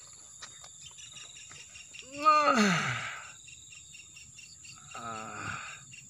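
Steady high-pitched insect chirring from crickets in the surrounding vegetation, with a few faint ticks in the first second. A man's voice cuts in with a drawn-out sound about two seconds in and again, more softly, near the end.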